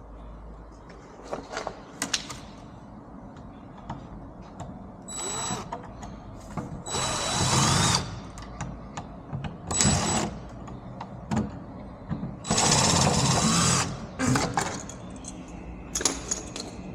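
Cordless drill driver run in several short bursts, the longest just over a second, backing out the screws of a door's passage handle. Small clicks and knocks of the handle and screws come between the runs.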